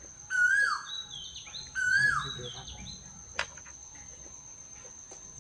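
A bird calling twice, each call a short falling note, followed by softer, higher chirps, over the steady high drone of an insect. A single sharp click comes a little past the middle.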